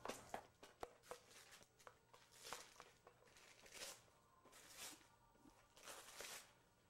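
Faint rustling and tearing of wrapping paper as a gift box is unwrapped, in several short rushes. There are a few light clicks in the first second.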